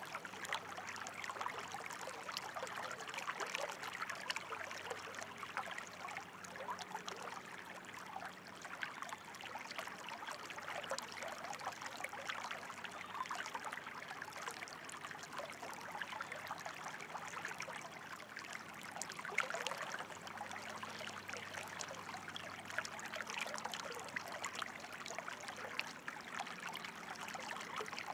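Running water trickling and babbling steadily, like a small stream, with many small splashes and no break.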